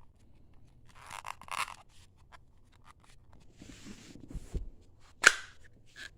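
Handling noise: brief rustling and scraping as objects are moved, with a few soft knocks, then one sharp click about five seconds in, the loudest sound.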